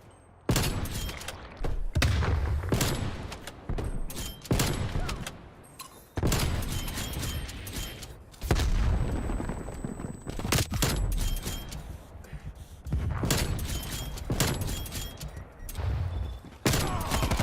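Video game gunfire: several volleys of rapid shots with heavy booms, separated by short lulls.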